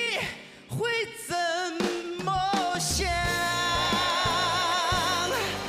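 A pop song sung by a solo singer over a band accompaniment. Short sung phrases give way, about halfway through, to one long note held with vibrato.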